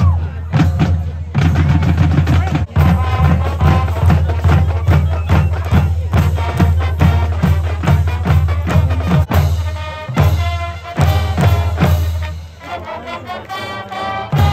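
High-school marching band playing a tune, with brass over a strong low bass line and drums keeping a steady beat, starting together at once.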